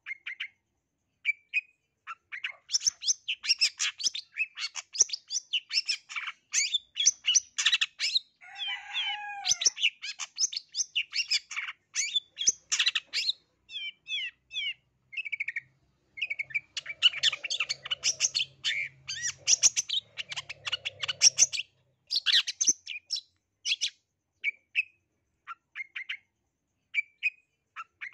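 Long-tailed shrike (cendet, black-capped 'blangkon' form) singing a fast, dense chatter of high chirps and mimicked notes. It starts with a few scattered calls, breaks into a long rapid run, then a second run, and ends with sparse single calls again.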